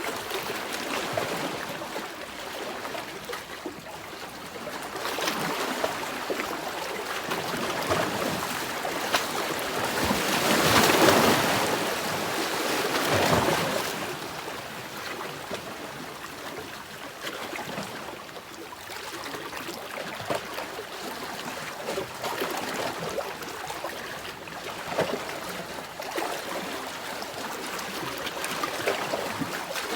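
Ocean waves washing in as a steady hiss of surf, with a bigger wave swelling up about ten seconds in and fading away by fourteen.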